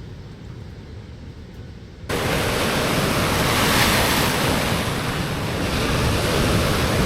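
Sea waves surging and washing in, a loud, even rush of surf that begins abruptly about two seconds in. Before it, only a quiet low rumble.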